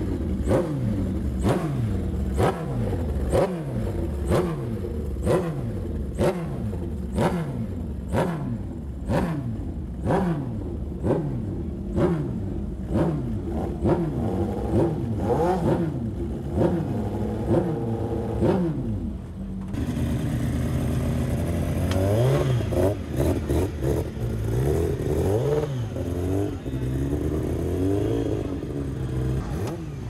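Classic superbike racing motorcycle engine warming up on a paddock stand, its throttle blipped in sharp revs about once a second, each rising and falling in pitch. About two-thirds of the way through the sound cuts to another race engine revving in slower, longer swells over other engines running.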